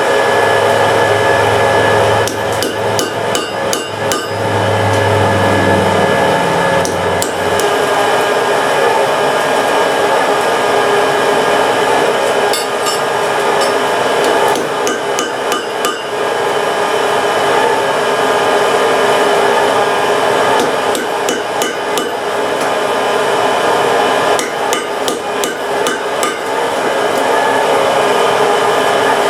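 Blacksmith's hammer striking iron on an anvil in several bursts of quick blows, over the steady hum of a forge blower.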